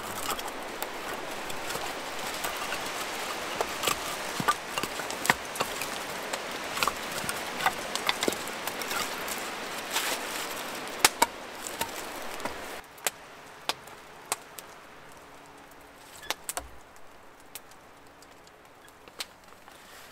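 Campfire crackling and popping steadily, with split firewood knocking as logs are handled. About two-thirds of the way through the sound drops abruptly to a quieter hush with scattered clicks and rustling.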